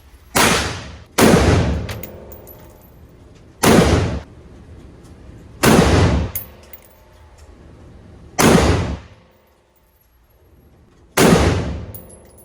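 Six gunshots fired at uneven intervals, each with a ringing tail, and faint high clinks between them.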